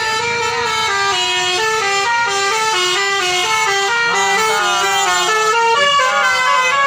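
A bus's telolet basuri musical air horn playing a quick tune of short stepped notes, several tones sounding together, with falling slides in pitch in the second half.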